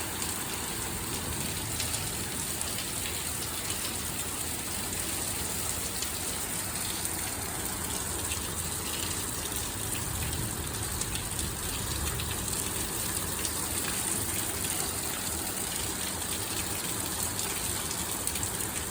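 Torrential thunderstorm rain pouring down steadily, an even rushing hiss with no thunderclaps.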